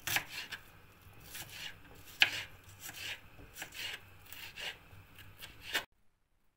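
Kitchen knife chopping onion on a plastic cutting board: irregular sharp strikes of the blade through the onion onto the board, about one or two a second, stopping abruptly near the end.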